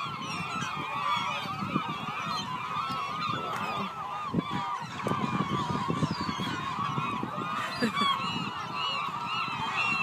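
A huge flock of seagulls calling all at once, a dense, unbroken chorus of overlapping squawks: a gull feeding frenzy over thrown french fries.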